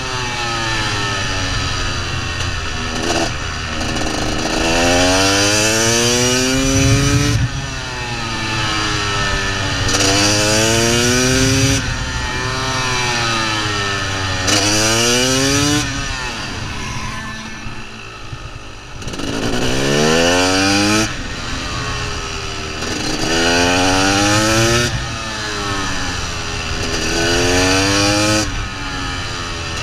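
KTM 300 two-stroke supermoto engine heard from on the bike, rising in pitch through each gear with a quick drop at every shift. Just past halfway it falls away off the throttle for a moment, then climbs through the gears again.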